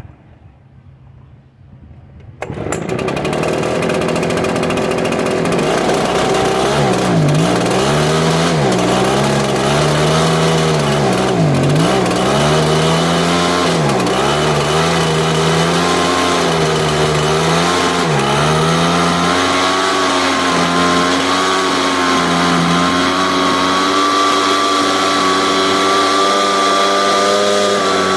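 Echo PB770H backpack blower's two-stroke engine firing about two and a half seconds in on a hot restart after a prime, then running. Its speed sags and recovers about every two seconds before settling to a steadier pitch near the end.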